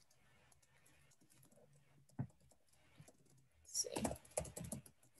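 Faint computer keyboard typing: a couple of single keystrokes, then a quick run of keys near the end.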